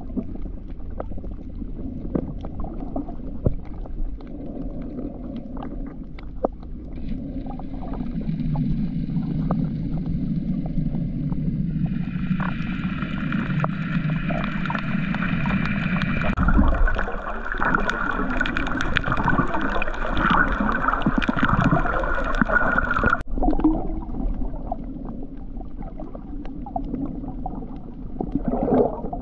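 Muffled underwater sound from a snorkeling camera: low water sloshing and gurgling. A steady motor whine carried through the water joins several seconds in, then cuts off suddenly late on.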